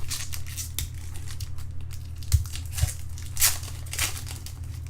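Foil trading-card pack wrapper crinkling and tearing as it is opened, in a run of irregular rustles that are loudest a little over two seconds in and again about three and a half seconds in.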